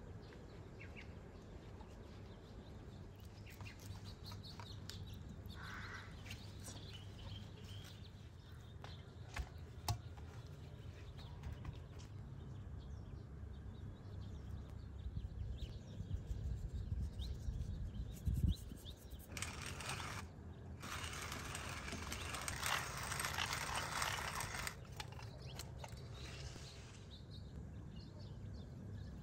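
Hands working raw trout fillets on an enamel tray, with light taps and handling noises. About twenty seconds in comes a dry rasping in two spells of a few seconds each, the loudest sound here. A few faint bird chirps sound in the background.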